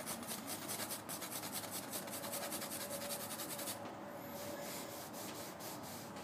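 Paintbrush scrubbing rapidly back and forth on a canvas, a dry rubbing that thins to fewer, sparser strokes after about four seconds.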